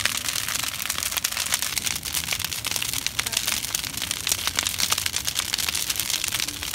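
Wooden pallet bonfire burning: a dense, continuous crackling and popping of burning wood over the hiss of the flames.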